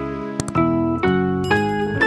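Gentle instrumental background music, its notes changing about every half second, with two short clicks close together about half a second in.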